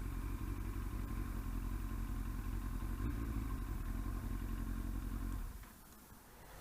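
Yamaha R1 motorcycle's inline-four engine idling steadily, then stopping abruptly about five and a half seconds in.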